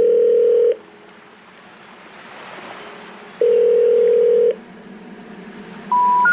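Telephone call tones: a steady low ringback-type tone sounds twice, about a second each, with a faint hiss between. Near the end come three short beeps stepping up in pitch, the special information tone that precedes a 'number not in service' recording.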